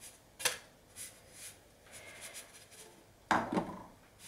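Frying-pan clatter as a pancake is tossed and the non-stick pan handled on an electric hot plate: a sharp click about half a second in, a few soft sliding sounds, then a heavier clunk a little after three seconds that dies away quickly.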